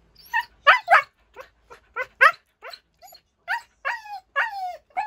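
Husky puppy vocalizing in a run of short whines and yips, the last few calls longer and falling in pitch.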